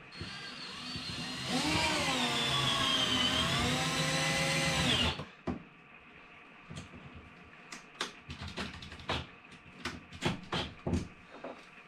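Power drill driving a screw up through the top of a microwave into the cabinet panel above, running for about five seconds with its pitch rising and wavering under trigger and load, then cutting off suddenly. Light clicks and taps of handling follow.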